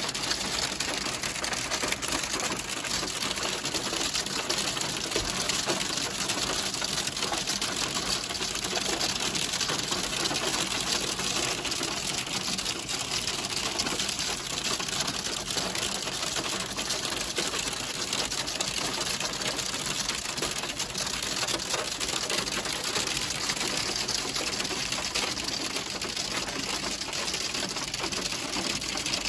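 Ice pellets hitting a car's roof and windows, heard from inside the cabin: a dense, steady rattle of rapid ticks.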